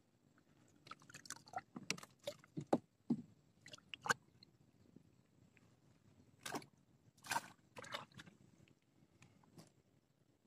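Scattered light clicks and rustles of hands handling a freshly caught tilapia and fishing tackle while unhooking the fish and rebaiting, clustered in the first few seconds and again past the middle.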